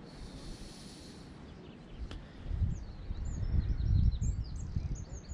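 Birds chirping in short rising and falling notes through the second half, over low rumbling gusts of wind on the microphone that swell from about halfway through and are the loudest sound.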